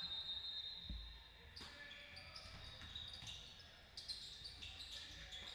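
Basketball game on an indoor court: a ball bouncing on the floor, with a low thud about a second in and several short high-pitched squeaks.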